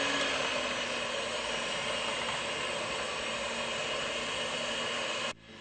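Electric blender running steadily, mixing pancake batter. It cuts off suddenly near the end, then starts up again.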